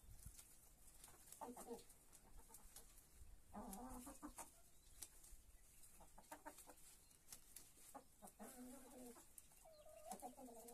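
Domestic chickens clucking softly while feeding: five short, low calls about two seconds apart, the last one longer, drawn out near the end. Faint scattered ticks sound between the calls.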